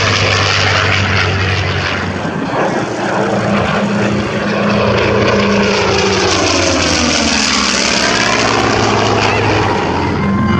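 Propeller aircraft flying past, its engine drone sweeping down in pitch as it passes.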